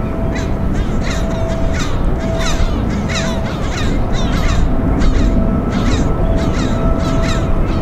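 A flock of birds calling, many short harsh calls each sliding downward in pitch, over a low wind-like rumble, with a faint beeping tone repeating about once a second.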